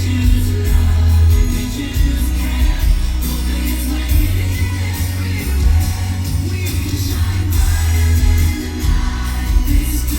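Pop song with singing over a strong, steady bass line.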